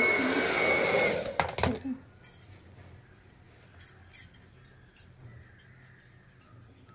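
Handheld hair dryer blowing with a steady whine, switched off about a second in with a couple of clicks. Then quiet, with light clicks and clinks as the hair is combed.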